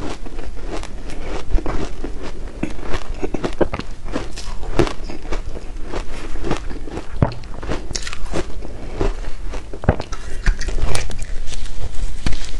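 Close-miked chewing of a mouthful of shaved ice coated in matcha powder: dense, irregular crunching and crackling, with a louder fresh bite near the end.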